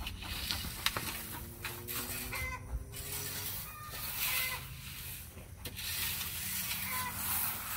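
A rake scraping and dragging through chipped limestone gravel in repeated strokes, with chickens clucking a few times.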